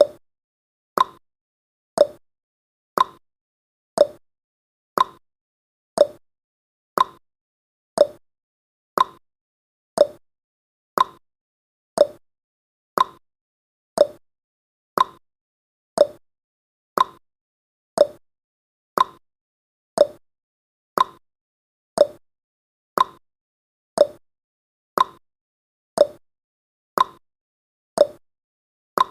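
Countdown timer tick sound effect: one short, sharp tick each second, marking off the seconds, with silence between ticks.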